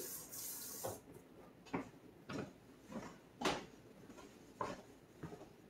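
A short hiss of tap water running at the kitchen sink for about a second. Then light footsteps, about one every half second or so, as someone walks across the kitchen floor.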